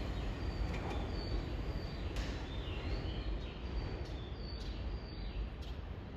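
Station platform ambience: the low rumble of a train slowly dying away, with a few faint short high-pitched chirps or squeaks and light clicks over it.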